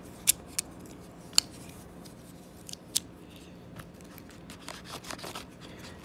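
Sharp metallic clicks of a Leatherman Charge TTi titanium multi-tool as its folding tools and handles are snapped shut, four clicks in the first three seconds. Softer handling rubs and ticks follow near the end.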